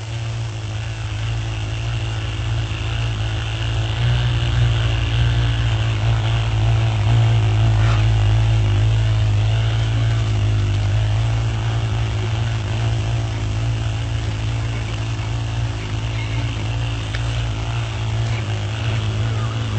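A fly buzzing: a steady, low droning hum that grows louder over the first few seconds and then holds.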